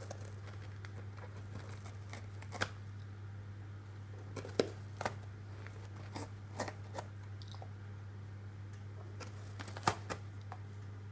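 A cat tearing and clawing at something, making irregular short rips, crinkles and clicks at uneven gaps, over a steady low electrical hum.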